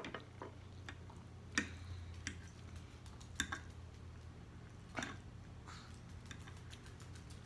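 A metal fork clicks sharply against a plate four times, about every second and a half, while scooping up scrambled eggs, with faint chewing and mouth noises in between over a low steady hum.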